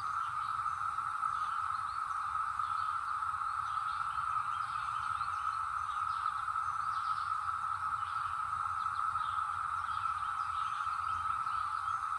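Brood X periodical cicadas chorusing: one steady, unbroken drone at a single pitch, with faint scattered higher chirps over it.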